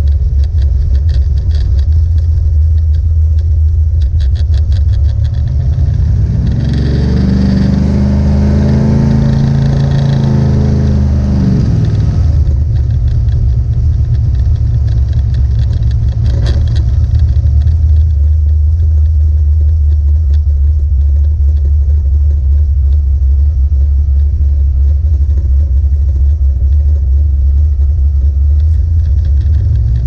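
1970 Plymouth Duster's 440 big-block V8 heard from inside the cabin on the road: a steady low rumble that rises in pitch as the car accelerates about six seconds in, drops back about six seconds later, then settles to a steady cruise.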